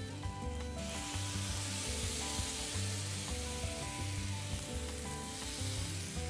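Pureed tomatoes hitting hot oil in a frying pan, setting off a loud sizzle about a second in that carries on steadily while a wooden spatula works the puree through the pan.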